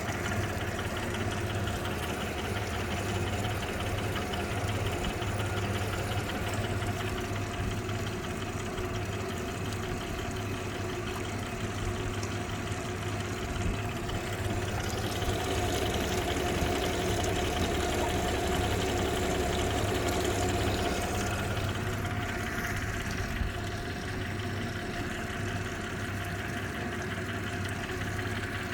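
2015 Suzuki DF250 V6 four-stroke outboard running steadily with a knock from the engine, whose cause the owner cannot pin down at 1600 hours. The engine note rises slightly about halfway through and settles back some six seconds later.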